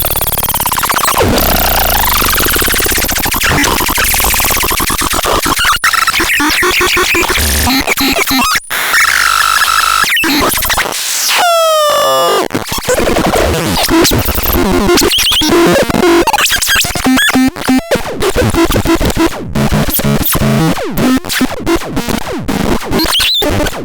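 Harsh, chaotic synthesizer noise with sweeping pitched tones. About halfway through a tone glides steeply downward, and later the sound chops on and off in quick stutters.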